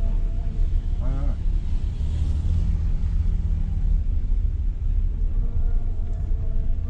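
Steady low rumble of a Renault car's engine and road noise heard inside the cabin while it drives slowly in traffic, with a brief voice-like sound about a second in.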